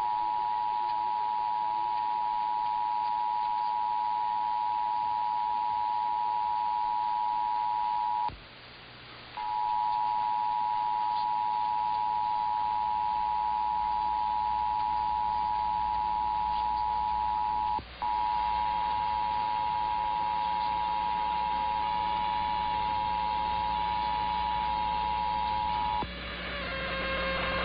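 Emergency Alert System two-tone attention signal, 853 and 960 Hz sounding together, heard three times for about eight seconds each: a short break after the first and a very brief dropout before the third. A low hum comes in under the later tones, and hiss rises after the last one stops near the end.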